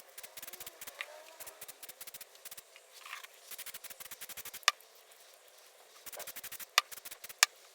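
Aerosol can of grey plastic primer spraying a second, thicker coat in short bursts, with fine rapid ticking over a faint hiss and a few sharp clicks near the middle and end.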